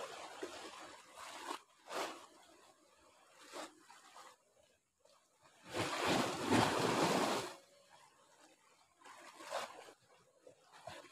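Small sea waves washing and sloshing against a rock ledge in irregular surges, the longest and loudest about six seconds in.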